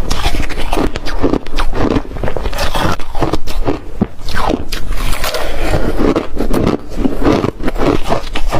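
Ice being chewed, crunching continuously in quick irregular bites close to the microphone.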